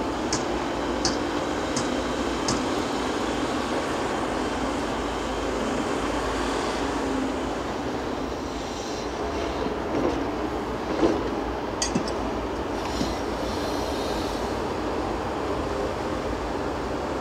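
Caterpillar 330F VA excavator working steadily, engine and hydraulics under load as it digs and curls its bucket full of soil. Light ticks come about every 0.7 s in the first few seconds, and a few sharp knocks from the bucket and stones come around eleven to twelve seconds in.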